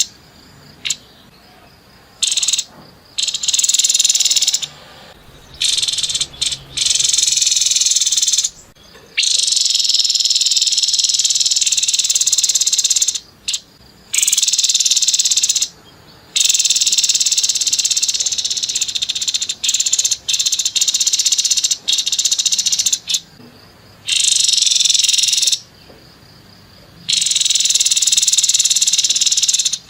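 Grey-headed babbler giving harsh, buzzing rattle calls: long high-pitched trilled bursts of one to four seconds, repeated with short gaps.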